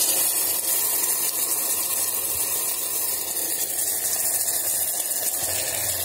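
Tomato puree sizzling in hot oil in an electric kettle: a steady hiss that jumps up as the puree is poured in.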